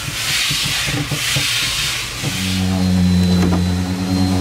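A steady hiss with a few light clicks; about two seconds in, a machine motor starts up and runs with a steady low hum.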